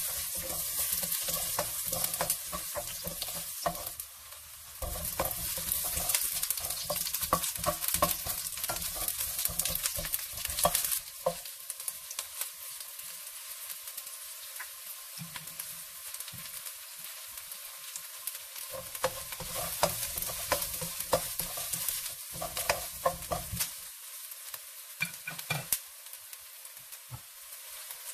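Garlic, ginger and onion sizzling in hot oil in a nonstick wok while a spatula stirs them, tapping and clicking against the pan again and again.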